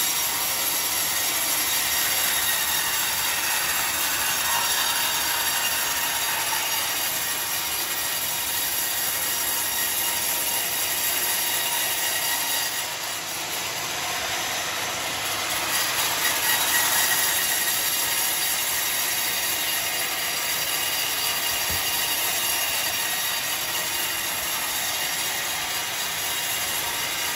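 Sawmill bandsaw running, its blade cutting lengthwise through a Johar log with a steady, high-pitched rasp. The sound dips briefly about halfway.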